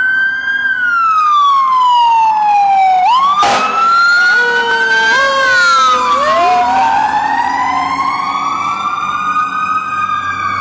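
Fire truck sirens wailing: at least two sirens overlap, each sweeping slowly up and down in pitch. A brief sharp burst of noise cuts through about three and a half seconds in.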